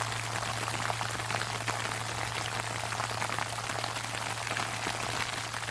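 Sleet pattering densely on an umbrella, a steady crackle of tiny hits, with the low hum of a large temple bell lingering underneath.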